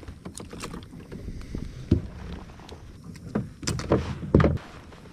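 Irregular knocks and clunks on a kayak: a sharp one about two seconds in, then a loud cluster of thumps about a second later.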